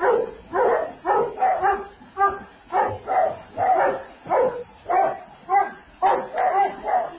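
German Shepherd-type dog barking and yelping over and over, about one to two barks a second, agitated at its owner thrashing in the pool.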